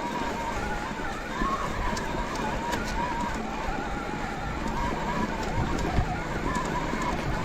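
Shimano EP8 mid-drive e-bike motor whining under pedalling. Its pitch wavers up and down over a steady rush of noise.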